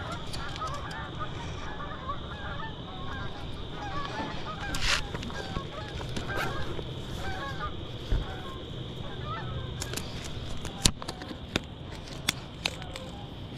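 Geese honking over and over, with a steady high insect buzz underneath and a few sharp clicks near the end.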